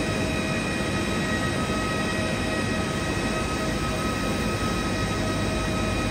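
Steady jet turbine whine from an Airbus A320 on the apron during pushback: several high steady tones over a broad, even rumble, unchanging throughout.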